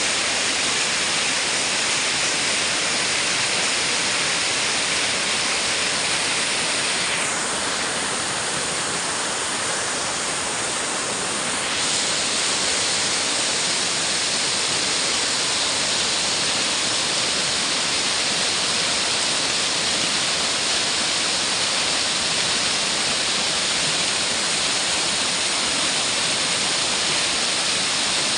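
Waterfall pouring: a loud, steady rush of falling water. It softens slightly in its upper part for a few seconds, about a third of the way in.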